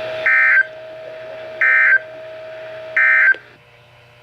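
Three short bursts of NOAA Weather Radio SAME digital data tones, a harsh warbling screech repeated about once every one and a half seconds. They are the End of Message (EOM) code that closes a Required Weekly Test.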